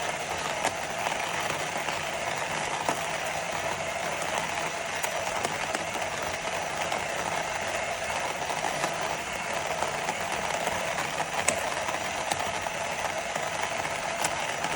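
Small cordless electric burr coffee grinder running steadily, with a few scattered clicks.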